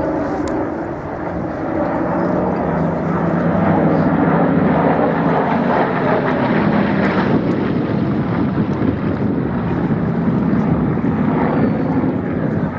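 Propeller aircraft engine drone from an aircraft flying a display pass, growing louder a couple of seconds in and staying loud.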